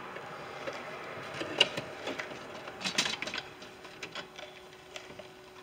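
Irregular clicks and knocks of hard parts being handled, the loudest about one and a half and three seconds in.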